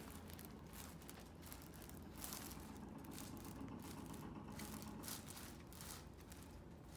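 Quiet room with a steady low hum and faint, scattered rustling and light handling noises.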